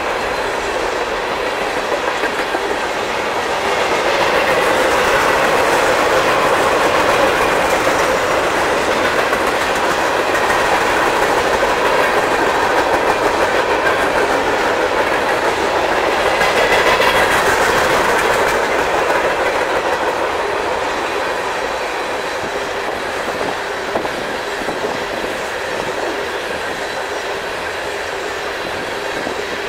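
Train cars rolling past on the track: steady wheel-on-rail noise with faint metallic ringing tones, growing louder about four seconds in and easing off after about nineteen seconds.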